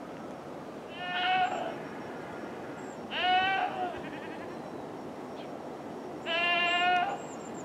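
Farm animal bleating: three short calls, each under a second, about a second, three seconds and six seconds in, over a steady low background hiss.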